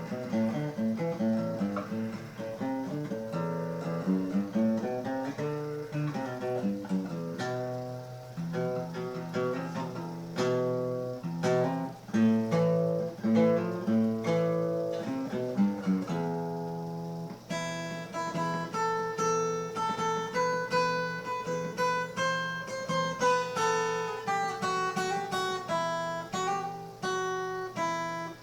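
Acoustic guitar playing: picked notes and chords over a low bass line, moving up to higher, brighter notes about two-thirds of the way through.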